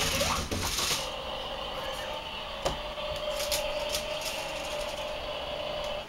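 Remote-control toy car's small electric motors and gearbox whining steadily, with a few sharp clicks.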